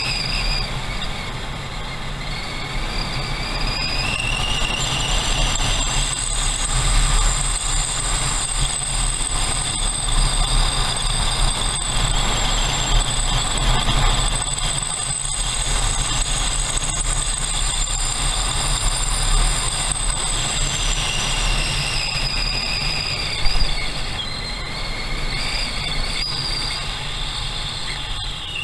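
Motorcycle under way, with heavy wind rumble on the bike-mounted camera's microphone and a high whine from the bike. The whine rises over the first few seconds as it speeds up, holds steady, then falls away late on. A single knock comes about three-quarters of the way through.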